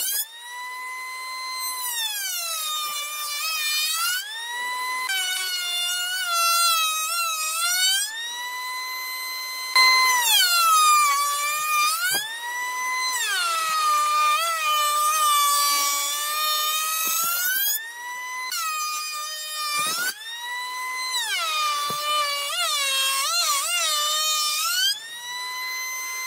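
Background music: a single high melody line that glides between held notes with a wobbling vibrato, in phrases of a few seconds.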